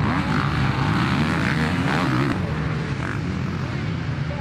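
Motocross bike engine revving hard, its pitch rising and falling several times as the throttle is worked.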